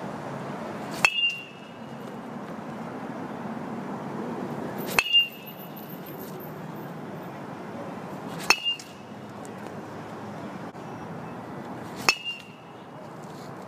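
Metal baseball bat hitting tossed baseballs four times, about every three and a half to four seconds. Each hit is a sharp ping that rings briefly, followed a moment later by a softer knock.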